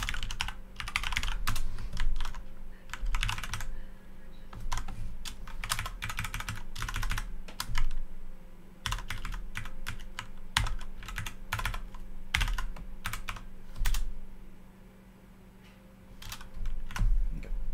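Typing on a computer keyboard in uneven bursts of keystrokes, pausing for about two seconds near the end.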